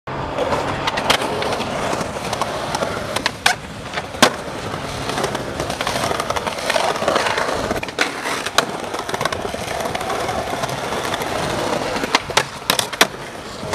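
Skateboard wheels rolling over stone paving, with a series of sharp clacks from the board and wheels striking the ground and paving joints.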